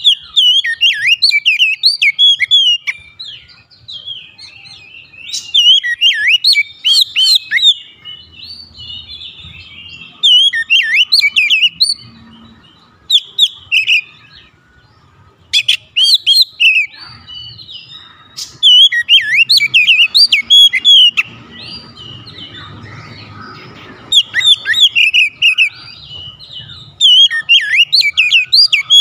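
Oriental magpie-robin singing a loud, fast, varied song of whistled and chattering phrases, delivered in repeated bursts of a second or more with short pauses between them.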